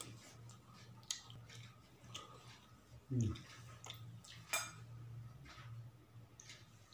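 Mouth eating sounds: wet smacking and clicking of chewing, with a short low throat sound falling in pitch about three seconds in and a sharper click a second or so later.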